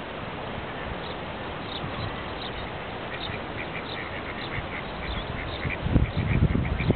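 Ducks calling on the pond: many short, high calls in quick runs over a steady background hiss. About six seconds in, loud, low, irregular thumps come in.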